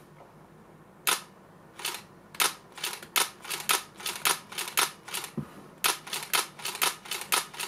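Nikon D4 DSLR's shutter and mirror firing over and over in its quiet release mode, a run of short clicks about three a second that starts about a second in.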